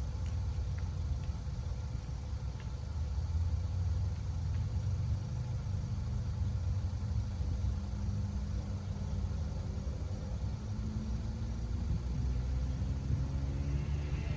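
Steady low rumble throughout, with a pitched sound of several tones swelling in near the end.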